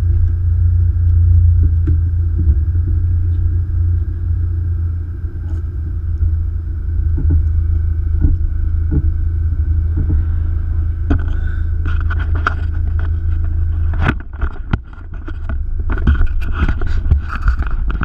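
Supercharged Mazda MX-5 Miata's four-cylinder engine idling with a steady low rumble, heard from a camera on the hood. In the last few seconds, irregular rustling noise joins in as the car begins to roll forward.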